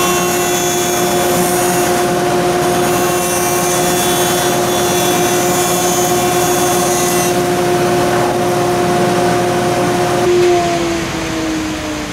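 Stationary wood jointer running with a steady motor hum while a board's edge is planed across its cutterhead for about the first seven seconds, the knives dressing the edge straight for a glue-up. About ten seconds in the machine is switched off and its pitch falls as it winds down.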